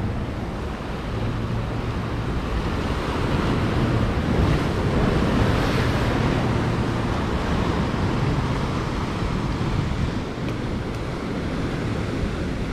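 Ocean surf washing onto the shore, with wind noise on the microphone; the wash swells to its loudest about five seconds in, then eases.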